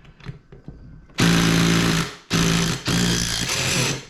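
Cordless impact driver run in three short bursts, its motor whining under the rapid hammering of the impact mechanism as it works on a stubborn screw in a pressure-washer motor housing. A few light clicks come before the first burst.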